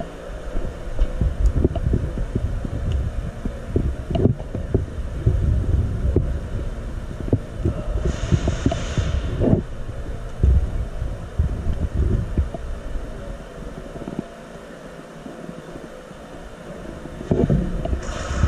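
Irregular low thumps and rustling of a player moving on foot: footsteps and gear knocking against a body-worn camera's microphone, briefly quieter about three-quarters of the way through.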